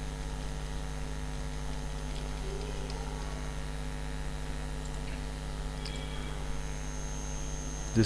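Steady electrical mains hum with a stack of overtones. A faint thin high whine comes in near the end.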